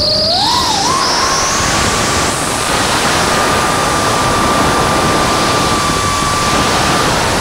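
DJI FPV drone's motors and propellers whining over a loud rush of air. The motor pitch climbs in the first second, holds steady and high, then dips near the end.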